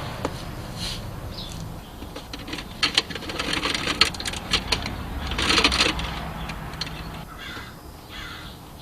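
Scattered clicks and rustling from hand work on a truck's wiring as a cable is run through the firewall, with a few short harsh rasping sounds, the loudest a little past halfway.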